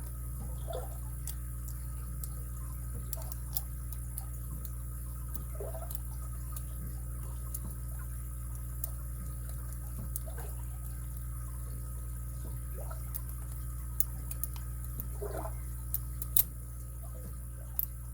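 Lock pick and tension wrench working the pin stack of a padlock: scattered faint ticks and light clicks over a steady low hum, with a few sharper clicks in the last few seconds.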